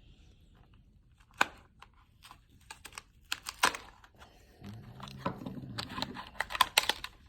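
Handling noises of computer parts and packaging: scattered sharp clicks and taps, with some rustling and crinkling between them. The loudest taps come about a second and a half in and in a cluster near the end.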